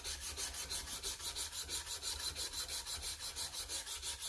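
320-grit sandpaper rubbing across padauk wood, sanding across the grain to take out swirl marks: a steady scratchy rasp that pulses evenly about seven times a second.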